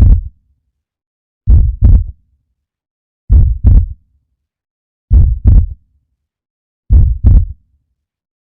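Heartbeat: repeated lub-dub pairs of low thumps, the second close behind the first, about one beat every 1.8 seconds, with silence between beats.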